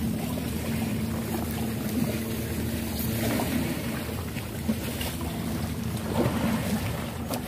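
An engine running steadily at an even pitch, with a wash of noise over it.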